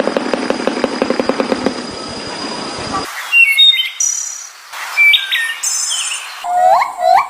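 Birdsong from spliced recordings: a fast rattling chatter for about three seconds that cuts off abruptly, then clear whistled song notes, then a quick run of repeated upswept notes near the end.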